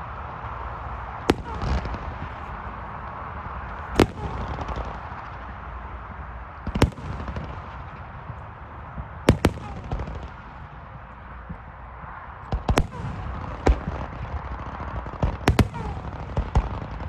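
Display-grade (1.3G) fireworks going off: about a dozen sharp bangs at uneven intervals, some with a brief crackle after them, over steady low background noise.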